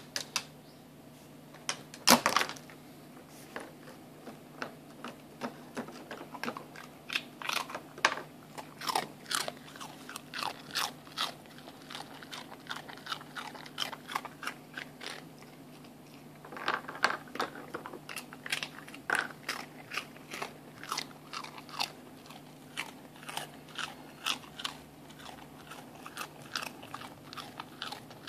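Shiba Inu crunching and chewing a senbei rice cracker, the hard cracker cracking in irregular sharp crunches, the loudest about two seconds in.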